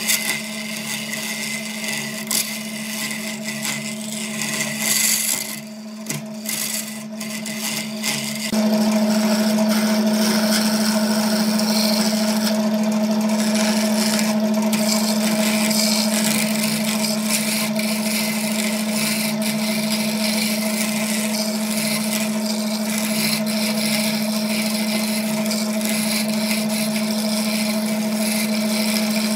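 Wood lathe running with a steady motor hum while a hooked hollowing tool scrapes inside a spinning wooden vessel. About eight seconds in the hum and the cutting noise get suddenly louder and stay so.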